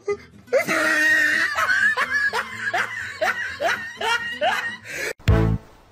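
A person laughing in a long run of short laughs, each one rising in pitch. Near the end it cuts to cheerful music with a steady beat.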